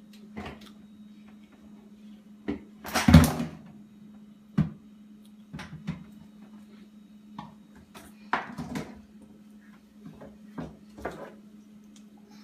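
Scattered knocks and thumps in a small room over a steady low hum. The loudest is a short clatter about three seconds in.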